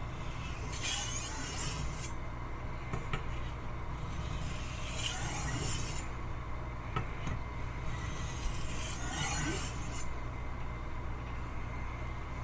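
Steel knife blade drawn slowly across a Naniwa Chosera 1000 waterstone, three long rasping strokes about four seconds apart, with faint clicks between them, over a low steady hum.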